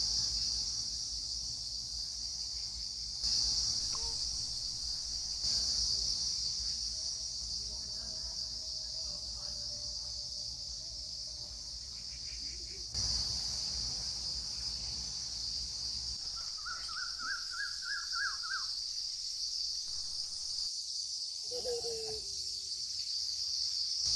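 Outdoor insect chorus: a steady high buzz of crickets or similar insects that carries on throughout. A bird calls a quick run of notes about two-thirds through.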